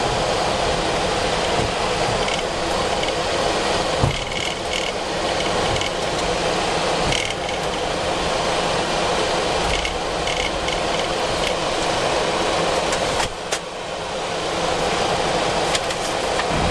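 Steady flight-deck noise of a Boeing 737-400 taxiing on the ground with its CFM56 engines at idle, a constant hiss and hum, with a few faint clicks.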